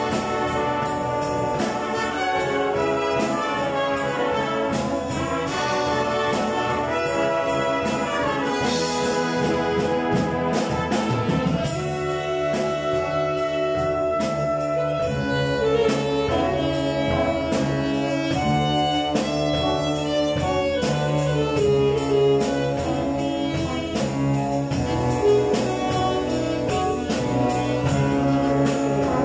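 Military band of trumpets, trombones, saxophones and drum kit playing a pop medley arrangement over a steady drum beat. About halfway through, the texture changes as an alto saxophone comes forward with a long held note and a solo line over the band.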